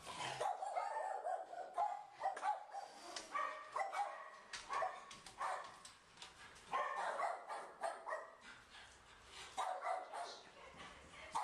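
A dog barking and yelping in short runs every second or two, with brief gaps between.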